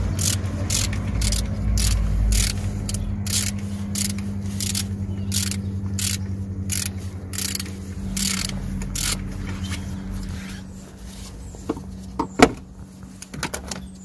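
Ratchet wrench clicking in quick repeated strokes, about two a second, as a bolt on the EGR cooler is worked loose, over a steady low hum. The clicking stops about nine seconds in, and a few short metallic clinks follow near the end.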